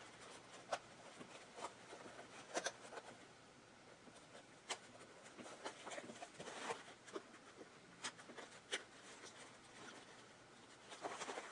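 A seam ripper picking and cutting the stitches of a sewn-on rank patch on a cotton-blend patrol cap, heard as faint, irregular small clicks and scratches with fabric rubbing.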